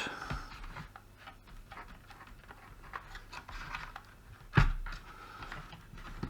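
Light clicks and small knocks of a router's circuit board and plastic housing being handled and worked loose, with one sharp knock about four and a half seconds in.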